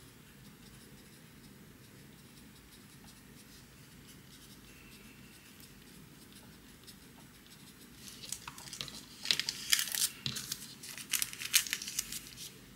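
Pencil writing faintly on a small slip of paper, then from about eight seconds in the paper is folded and creased by hand with a run of sharp crinkling and crackling.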